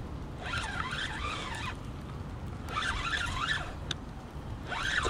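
Spinning fishing reel whirring in three bursts of about a second each, rising and falling in pitch, under the heavy load of a large alligator gar on the line.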